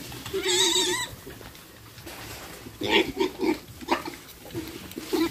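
Piglets squealing in a pen: one loud, wavering squeal about half a second in, then a run of short squeals about three seconds in.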